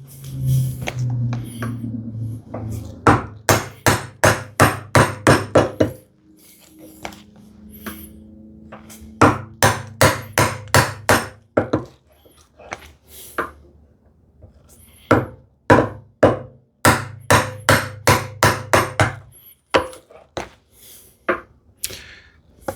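Bevel-edge chisel being struck to chop a mortise in a hardwood leg, in three quick runs of sharp blows of about three a second, with short pauses between runs.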